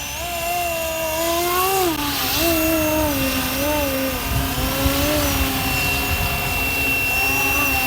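FlyWing MH-60T Jayhawk electric RC helicopter in flight, its motor and rotors whining, the pitch rising and falling smoothly as it manoeuvres, over a steady high whine.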